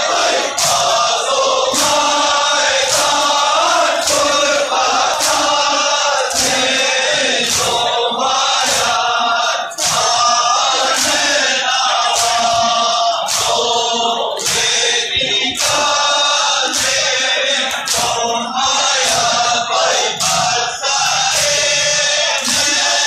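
A large crowd of men chanting a mourning chant together. Frequent sharp strikes cut through it, from the chains swung in zanjeer zani self-flagellation.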